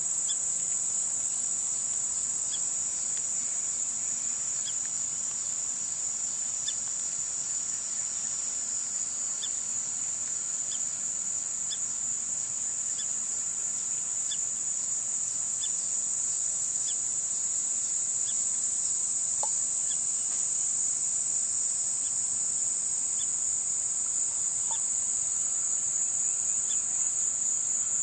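Steady, high-pitched chorus of summer insects that never breaks, with faint short chirps repeating every second or so and a couple of brief lower notes.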